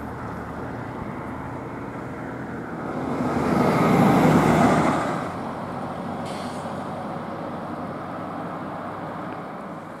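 Road traffic noise, with a car passing close by that swells to its loudest about four seconds in and fades again by about five seconds.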